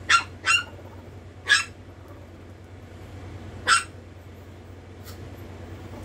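Chihuahua puppy yapping in short, high yaps: two quick ones at the start, one at about a second and a half, one near four seconds, and a faint last one about five seconds in.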